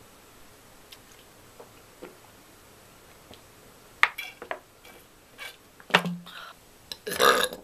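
Sharp clicks, taps and clinks of a soda drink container being handled, scattered through the second half, with a louder noisy burst of about half a second near the end. Before that come faint, evenly spaced ticks about once a second.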